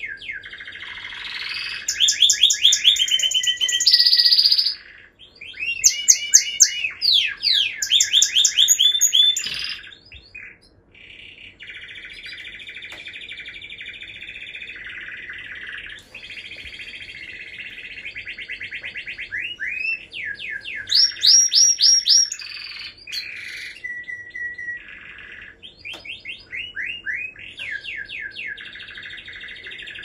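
Domestic canary singing a long, varied song of rapid trills and quickly repeated rising notes. A loud run of phrases comes near the start, a steady rolling trill holds for several seconds in the middle, and another loud burst of phrases comes about two-thirds through.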